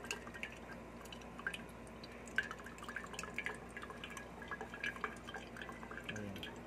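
Water dripping from a thin tube into an aluminium soda can: irregular small plinks, several a second, as warm cooling water is drawn off the thermoelectric generator's top reservoir.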